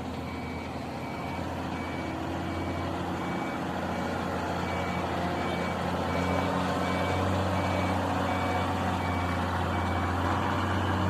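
Heavy crane's diesel engine running and slowly growing louder, with a warning alarm beeping steadily, about one beep every 0.7 seconds.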